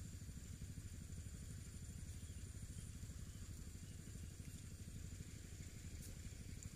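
A small engine idling steadily in the background, a low even rumble, with a faint steady high-pitched whine above it.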